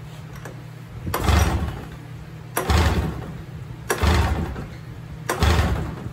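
Four pull-starts a little under one and a half seconds apart on a Polaris RMK snowmobile's two-stroke engine with a 770 big bore kit; each pull turns the engine over but it never fires. The engine is not picking up fuel, which the owner puts down to the fuel pump's pulse line having been left disconnected.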